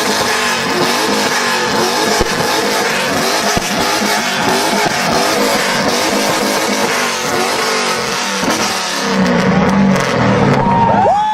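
Tuned turbocharged performance car engine revving hard, its pitch swinging up and down, with a sharp rev that rises and then drops near the end.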